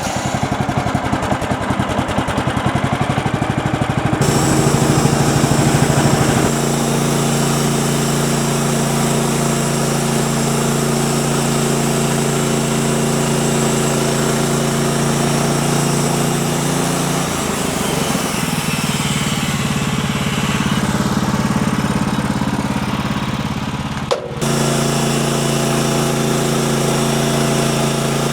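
Small gasoline engine of a manual band sawmill running steadily, its pitch shifting a few times as the load changes.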